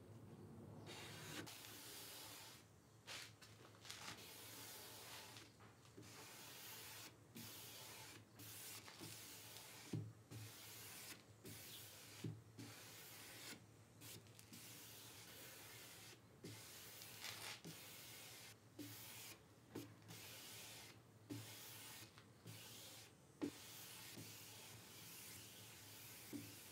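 Faint rubbing of a cloth pad wiped in repeated strokes over a wood veneer top, applying clear shellac. Each stroke is a soft brushing noise about a second long, with brief pauses and an occasional light knock between strokes.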